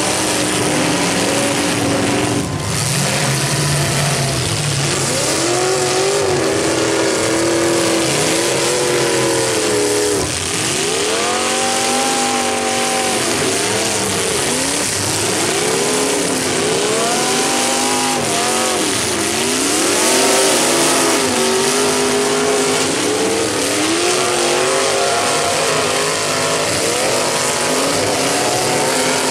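Several demolition derby cars' engines revving hard and falling off, overlapping, as the cars back up and ram into one another, with a sharp crash about two and a half seconds in.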